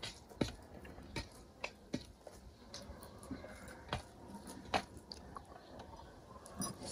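Soft eating sounds: faint, scattered clicks and smacks of chewing, and of fingers mixing rice on a steel plate, with a low hush between them.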